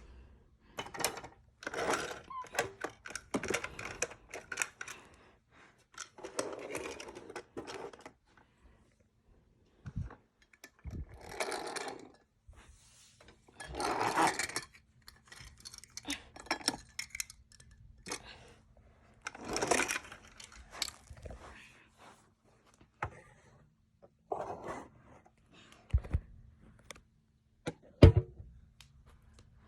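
Plastic toy farm machinery being handled: irregular clicks, knocks, rattles and short scrapes, with a few louder knocks near the end.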